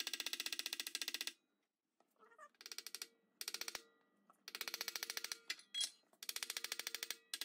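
Ratchet wrench clicking in short runs of rapid, even clicks, five bursts with pauses between, as the locating pins are run into the motor housing.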